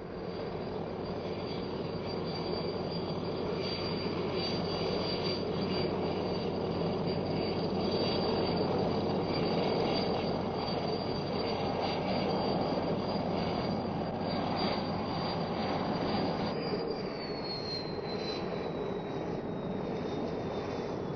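Helicopter engine and rotor running steadily: a rumble with a steady high whine over it. About two-thirds of the way through, the whine begins slowly falling in pitch.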